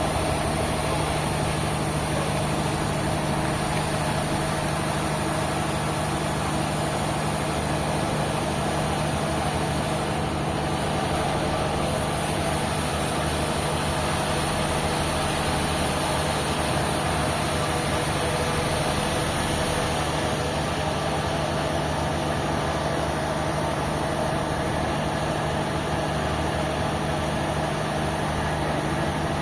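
Sawmill machinery running steadily: a continuous engine-like hum with a constant low tone and an even wash of noise, level throughout with no distinct cuts or knocks.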